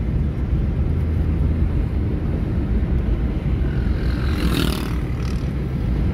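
Steady low rumble of a car's engine and tyres on the road, heard inside the cabin while driving. About four and a half seconds in, a brief whoosh as an oncoming motorcycle passes.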